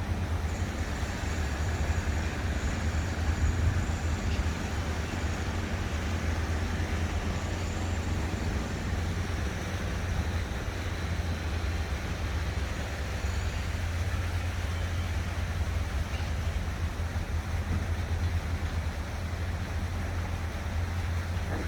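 Steady urban outdoor ambience: a constant low rumble under an even splashing hiss of water fountains, with no distinct events.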